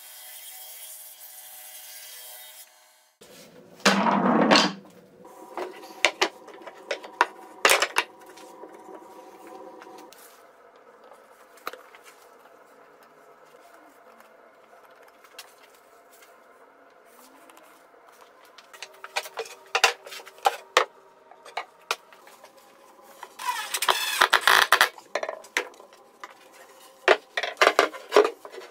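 Plywood panels and a wooden dowel handled on a workbench: scattered knocks and taps of wood on wood and on the bench top, with rubbing in between. There is a louder rubbing noise about four seconds in and another lasting over a second near twenty-four seconds, over a faint steady hum.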